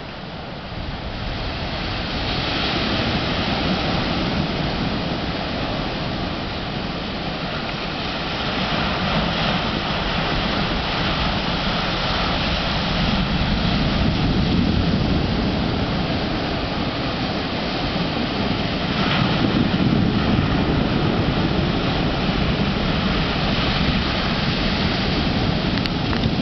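Heavy surf from a typhoon swell breaking on the shore: a continuous rushing noise that swells and eases every few seconds as the waves come in.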